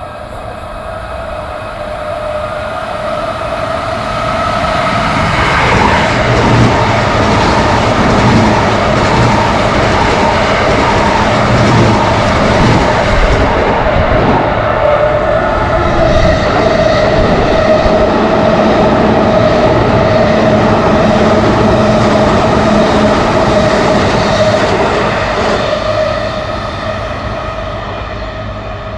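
Electric train passing through a level crossing, growing louder over the first few seconds, loud for about twenty seconds as the cars go by, then fading near the end. A steady ringing tone from the crossing's warning alarm runs over it.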